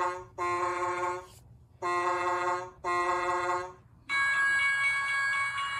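Electronic sound effect from the push-button on a toy wooden-railway mountain tunnel: four train-whistle toots of about a second each. When the button is pressed again about four seconds in, a longer electronic sound follows, several steady tones over a hiss.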